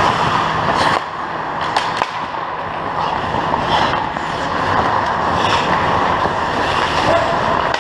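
Ice hockey skates scraping and carving on rink ice, a steady hiss broken several times by short, sharp scrapes or stick clacks.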